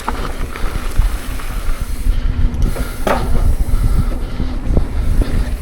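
Wind buffeting the microphone over the rattle and knocks of a mountain bike riding a rough downhill trail, with a brief falling squeal about three seconds in.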